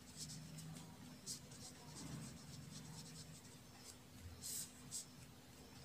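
A pen writing words on paper by hand: a string of short, faint, high scratching strokes, the strongest about four and a half seconds in.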